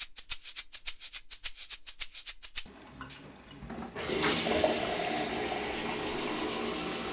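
A fast, even run of sharp ticks, about seven a second, for the first few seconds. About four seconds in, a chrome kitchen tap is turned on and water gushes steadily into a drinking glass.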